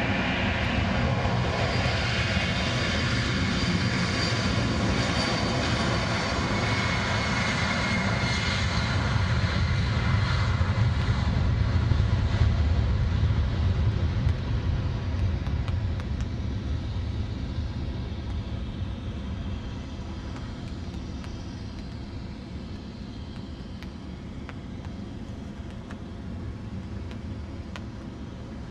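Boeing 747 Classic's four jet engines at takeoff power as the jet passes and climbs away: a deep rumble with a high whine over it, loudest about twelve seconds in, then slowly fading.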